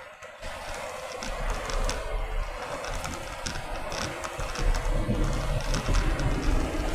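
Road and engine noise inside a moving car, a steady low rumble with light clicking rattles repeating every half second or so.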